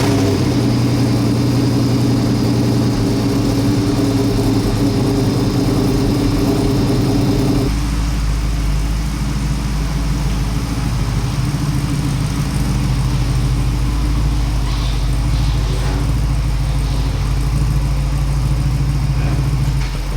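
Truck engine idling loudly just after start-up, a sound the owner calls a beast. About eight seconds in the idle drops to a lower, steady speed.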